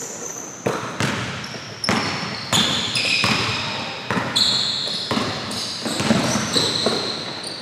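A basketball being dribbled on a hardwood gym floor, a string of sharp bounces about every half second to a second, mixed with many short, high-pitched squeaks from sneakers on the floor.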